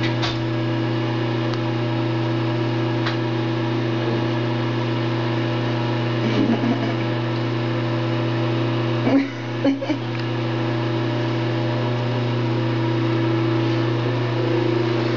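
A steady low mechanical hum holds level throughout, with a few brief soft noises about six seconds and nine seconds in.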